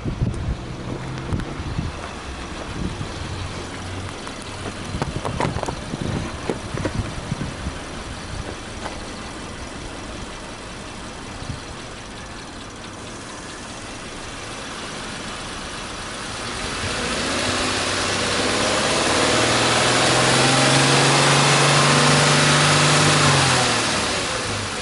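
Subaru Forester 2.0X's 2.0-litre flat-four boxer engine running. It idles steadily under a few knocks and clicks in the first seconds, then is revved up from about halfway. It holds at raised revs for several seconds with a steady, louder note, then drops back toward idle near the end.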